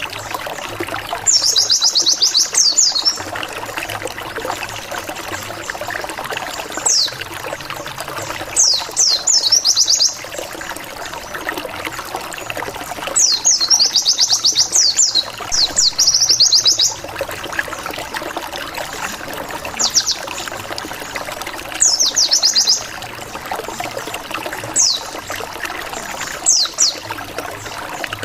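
White-eye (pleci) song, the 'ngalas' lure song used to provoke rival white-eyes to answer. It comes in bouts of rapid, high, down-slurred notes, several seconds apart, over a steady sound of trickling water.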